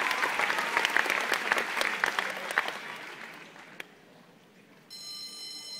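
Arena crowd applauding, dying away over the first four seconds. Near the end a steady high tone sounds for about a second.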